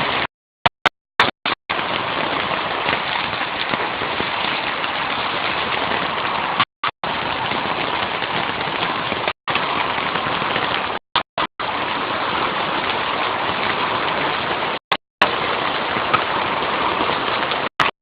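Heavy hailstorm, hail and rain pelting down as a steady dense hiss. Several times the sound cuts out completely for a split second, dropouts in the mobile-phone recording.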